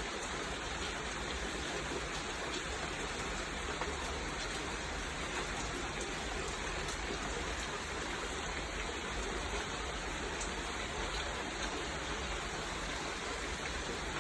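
Heavy monsoon rain pouring steadily, a dense even hiss with scattered drops ticking on surfaces.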